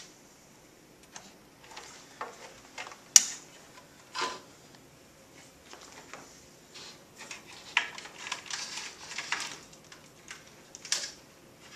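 Handling noises as a USB cable is plugged into a laptop and the laptop is worked on a computer cart's pull-out shelf. Scattered clicks and knocks, the sharpest about three seconds in, then a busier run of clicks and rattling in the second half.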